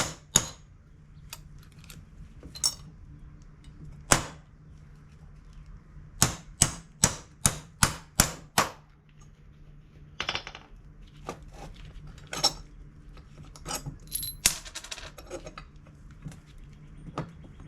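Hammer striking a bolt used as a drift to drive a hinge pin out of a 1970 Chevelle door hinge, making sharp metallic blows. A few single strikes come first, then a run of about seven quick blows a little over a third of the way in, then lighter taps and clinks.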